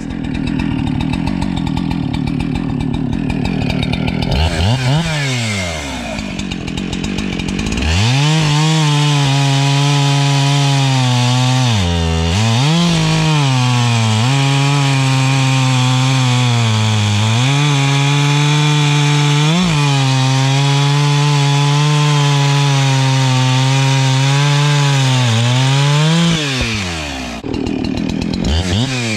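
Husqvarna 372XP two-stroke chainsaw bucking a log into rounds. It revs up and back down once about five seconds in. From about eight seconds it runs steadily at high speed under load in the cut, with brief rises and dips in pitch. The pitch drops near the end as the cut finishes, then it revs again.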